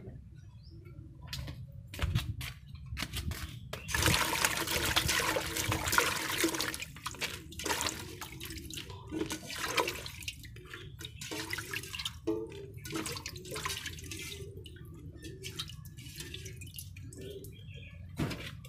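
Water sloshing and splashing in a metal pot as a hand washes chilies and scoops them out, with a louder stretch of splashing from about four to seven seconds in and scattered small splashes and drips after.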